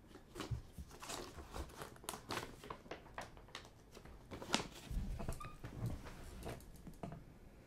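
Paper CD booklet rustling and crinkling as it is unfolded by hand into a fold-out, a string of irregular crackles that stop about seven seconds in.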